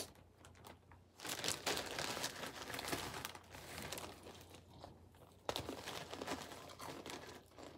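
Clear plastic zip-top bag of cereal crinkling as it is handled and its zipper worked open, in several bouts of rustling.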